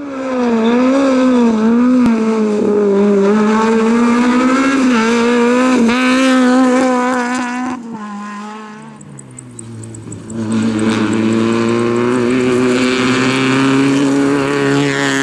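Rally car engines at high revs: one car's note rises and falls rapidly with throttle and gear changes, then fades about eight seconds in, and a second car comes up with a steadier high-revving note that grows louder near the end.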